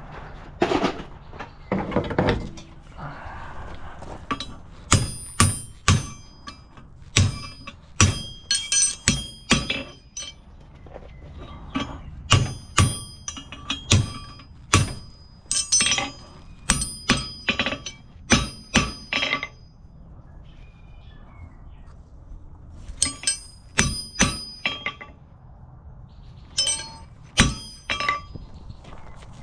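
Farrier's hoof nippers cutting hoof wall while trimming a horse's hoof: a series of sharp snaps, each with a short metallic clink, coming in irregular clusters with pauses between them.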